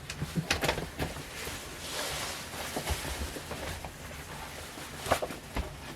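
Paper rustling and handling: sheets and booklets of sheet music being moved and shuffled, with a few light knocks near the start and near the end.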